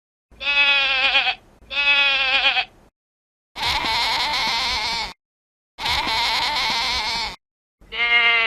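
Goat bleating in a series of five separate calls with silent gaps: two short quavering bleats, then two longer, harsher, scream-like bleats, and another quavering bleat starting near the end.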